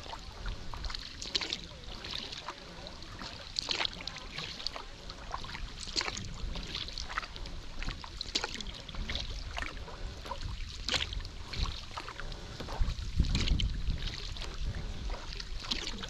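Kayak paddle strokes on a slow river: the blades dip and lift with splashes and drips, irregularly about once a second. A brief low rumble swells about two-thirds of the way through.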